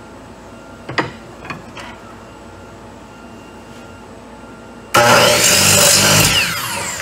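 A board knocks against the saw table and fence, then about five seconds in a DeWalt miter saw switches on abruptly and cuts through the board. After the cut the blade winds down with a falling whine.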